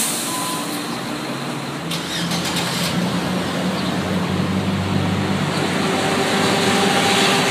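Road traffic: a vehicle engine running with a steady low hum under a haze of road noise, growing slightly louder.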